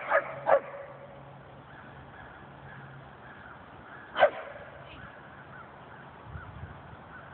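Dog barking: three quick barks right at the start, then a single loud bark about four seconds in.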